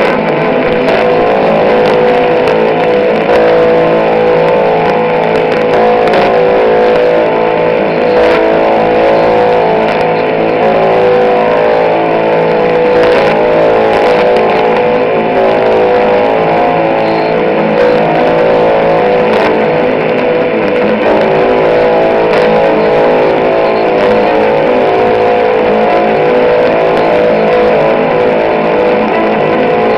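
Music from Iceland's 207 kHz longwave broadcast playing through a Sony ICF-2001 receiver's speaker, over a steady hiss with scattered crackles of static from long-distance AM reception.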